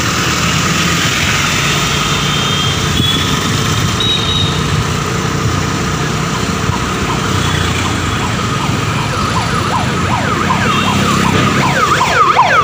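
Steady engine, road and wind noise from a scooter ride through traffic. About ten seconds in, a siren starts with rapid rising-and-falling sweeps that get louder toward the end.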